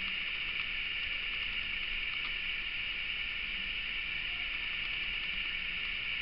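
Steady, even hiss of background noise with no other clear sound.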